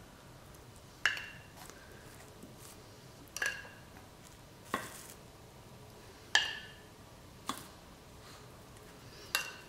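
A metal spoon clinking against a saucepan as syrup is spooned out over a brioche: about six sharp, briefly ringing clinks, irregularly spaced a second or two apart.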